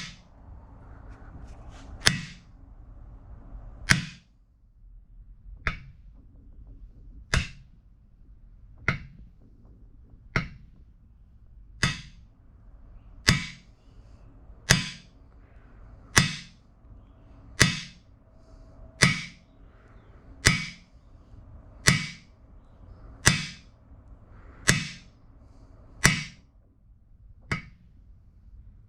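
Steady, evenly paced hammer blows on a steel cam bearing driver, about one every one and a half seconds, each with a short metallic ring, driving a cam bearing into the LS engine block.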